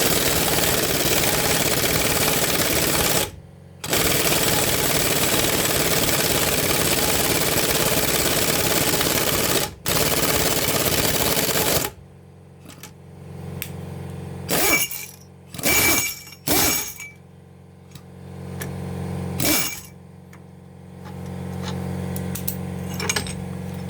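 Impact wrench hammering on the threaded rod of a homemade bushing puller, pressing the old rubber-metal bushing out of a leaf-spring eye: three loud bursts of rapid hammering with two short breaks. After about twelve seconds it stops, leaving a quieter steady low hum and a few short knocks.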